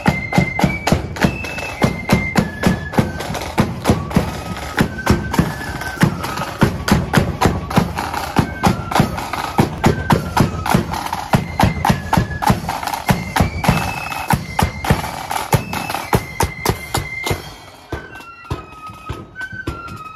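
Marching flute band playing a tune on flutes in unison over drums beating a steady marching time, about two strokes a second. Near the end the drums drop out and the flutes play on more quietly.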